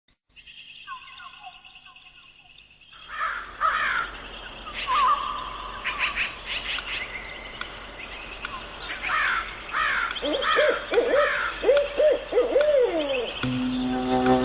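Owls hooting: a quick run of about six low hoots near the end, with repeated higher, falling calls through the earlier part.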